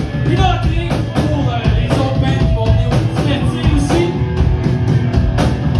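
Punk rock band playing live: two electric guitars, bass guitar and drum kit, loud and continuous.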